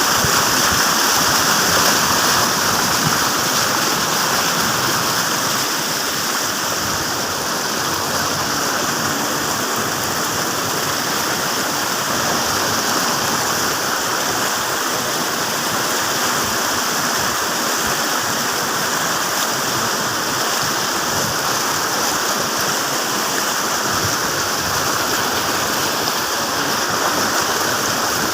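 Floodwater rushing over a road like a river: a steady, unbroken noise of flowing water.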